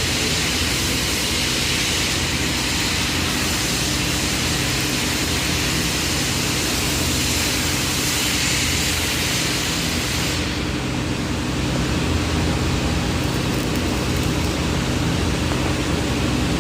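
Welding arc hissing steadily over a low machine hum during a pipe weld. About ten seconds in, the hiss loses its highest part and goes on duller.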